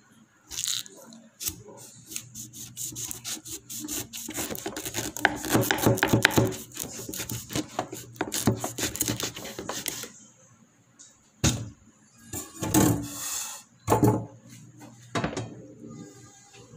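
Off-screen kitchen handling noise: a rapid clatter of clicks and knocks for several seconds, then a few separate louder knocks.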